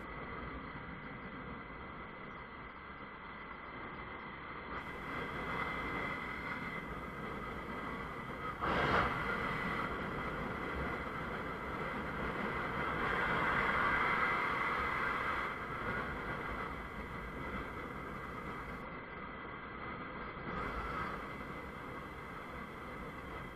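Ride on a Honda CBF 125 motorcycle with its single-cylinder four-stroke engine: steady engine, wind and road noise. A sudden loud thump comes about nine seconds in, and the noise swells louder for a couple of seconds around the middle.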